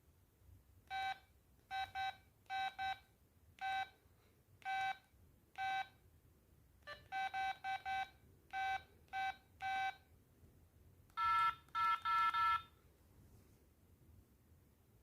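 Beeps from an LG MD5330 mobile phone's speaker: short key beeps, all on one pitch, come singly or in quick pairs at an uneven pace, as buttons are pressed. About eleven seconds in, a quicker, louder run of beeps sounds on two higher pitches.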